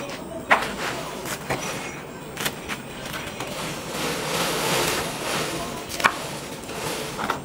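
A knife cutting a crisp fried paratha on a wooden chopping board: crackling of the crust as the blade goes through, with a few sharp knocks of the blade on the board, one about half a second in and two near the end.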